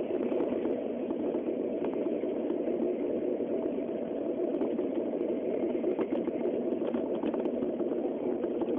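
Steady running noise of a Shinkansen Nozomi train at speed, heard from inside the passenger car: an even, constant rumble with a few faint ticks, picked up by a mobile phone's microphone.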